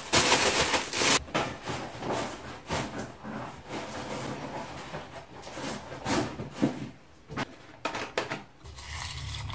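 Dry cereal pouring from a plastic bag into a ceramic bowl, a rattling rush lasting about a second, followed by scattered clicks and knocks of kitchen items being handled.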